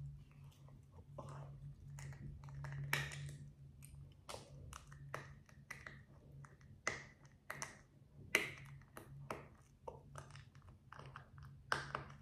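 Small plastic building bricks clicking and knocking as they are handled, pressed together and pulled apart: a long run of sharp, irregular clicks. A steady low hum runs underneath.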